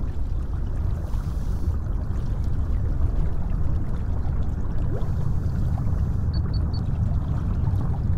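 Steady low engine rumble. About six seconds in, three quick high electronic beeps sound over it.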